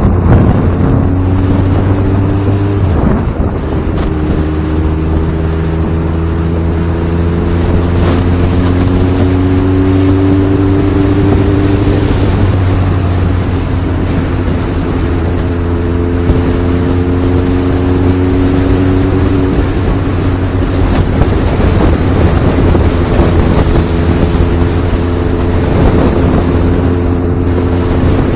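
Motorcycle engine running while riding at low speed, its pitch climbing slowly and falling back twice, with wind noise on the microphone.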